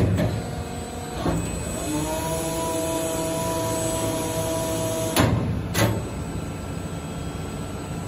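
TEDERIC D250 servo-hydraulic injection molding machine running. Its pump drive whines with a steady tone for about three seconds over a constant machine hum, then two sharp clacks come a little over half a second apart.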